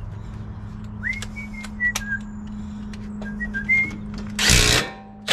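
A person whistling a few short notes, one rising at the start, over a steady low hum, with scattered sharp clicks of tool handling. Near the end there is a short, loud burst of noise.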